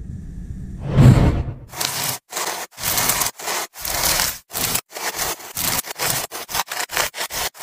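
Knife blade sawing through a braided synthetic rope: a series of short scraping strokes with brief gaps between them, coming faster toward the end.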